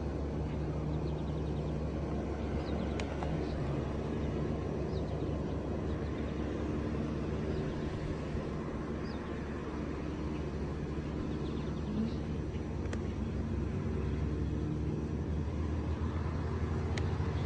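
Steady low drone of an airplane's engines overhead, with a few faint bird chirps.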